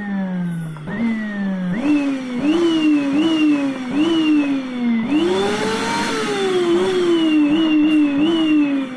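A 1700-watt vacuum cleaner's motor being revved up and down with its power control. The whine jumps sharply in pitch and then slides back down, about half a dozen times, with one slower rise and fall in the middle, like an engine revving.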